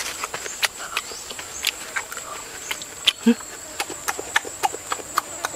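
Insects droning with one steady high tone, with scattered sharp clicks and rustles throughout and a short voice sound about three seconds in.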